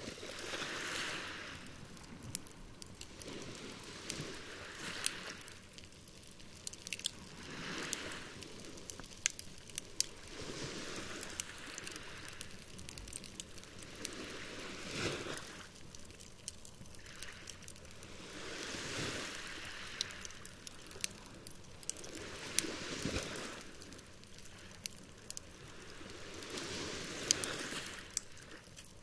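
Campfire crackling, with many sharp pops scattered through it, over waves rolling in and washing back in swells about every four seconds.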